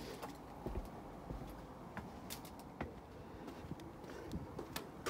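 Footsteps climbing the riveted steel footbridge stairs, a scatter of irregular knocks and scuffs.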